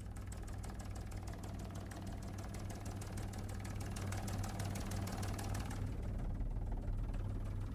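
News helicopter's engine and rotor drone, heard from inside the cabin: a steady low hum with a fast, even beat, growing slightly louder toward the end.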